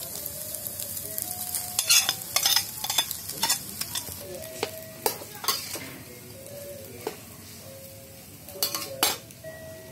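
Metal spatula scraping and knocking against a wok, a string of sharp clicks, as rice is stirred into scrambled egg and shallots over a light sizzle of frying.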